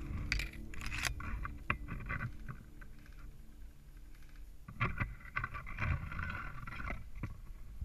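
Branches, twigs and dry leaves rustling and crackling as someone pushes on foot through dense saplings, in two bouts: at the start and again about five seconds in, with a few sharp twig snaps in between.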